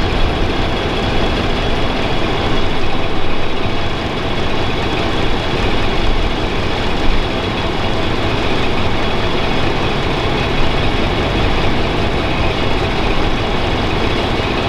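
Steady rumble of vehicle traffic and running engines, even throughout with no single pass-by standing out.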